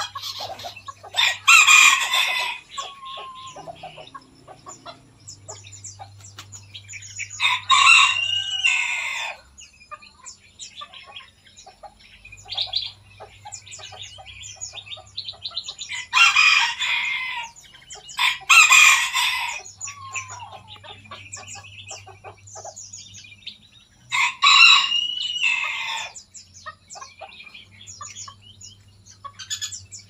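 A rooster crowing five times, each crow lasting about a second and a half, with a steady patter of small birds chirping between the crows.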